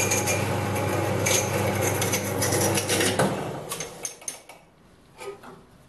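Small metal-cutting bandsaw running and cutting through 8 mm brass rod, a steady motor hum with a fine rasp from the blade. About three seconds in the saw stops and its sound dies away, leaving a few small clicks.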